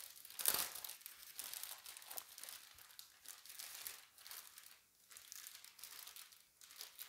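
Clear plastic bag crinkling and rustling in irregular crackles as it is pulled off a router, loudest about half a second in.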